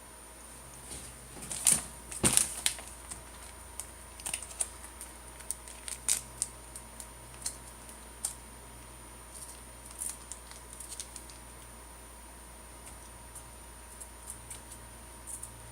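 Irregular light clicks and taps, a cluster of louder ones about two seconds in, over a faint steady hum.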